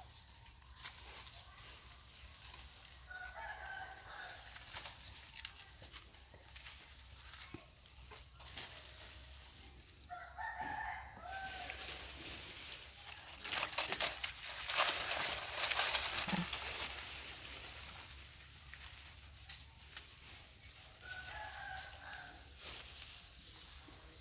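A rooster crowing three times, each crow lasting a second or two, spread several seconds apart. In the middle comes a louder stretch of rustling hiss.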